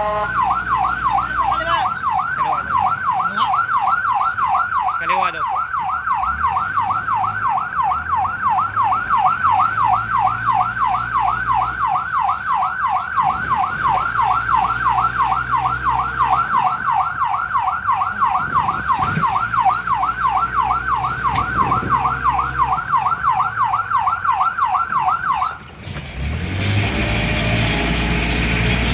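Fire and rescue vehicle's electronic siren in a fast yelp, rising and falling about three times a second over the vehicle's engine rumble. The siren cuts off suddenly near the end, leaving louder engine and road noise.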